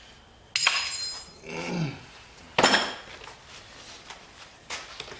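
Metal tools or engine parts clanking and clinking as they are set down or knocked together, with two sharp ringing clanks, the first about half a second in and a louder one about two and a half seconds in.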